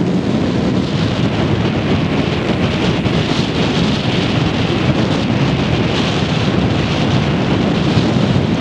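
Wind buffeting the camera microphone: a loud, steady low rumble, with a fainter hiss higher up joining about a second in.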